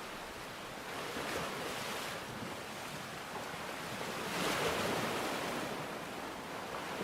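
Steady rushing water noise with no pitch to it, swelling briefly about a second in and more strongly around four to five seconds before settling back.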